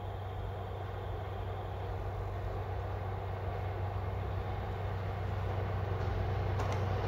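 JR Freight DF200 diesel-electric locomotive approaching at speed in the distance, its engine a steady low drone that grows slowly louder as it nears.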